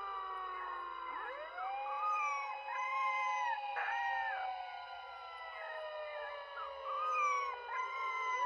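Dogs howling in short rising-and-falling calls over a siren tone that slides slowly down in pitch.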